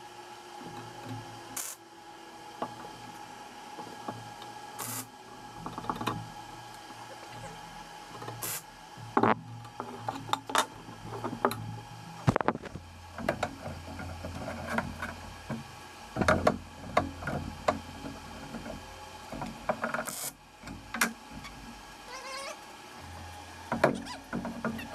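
Steel square tubing being handled and set on a steel frame and workbench, with scattered knocks, clanks and scrapes, more frequent in the second half, over a steady faint hum. A lower hum comes in about twelve seconds in.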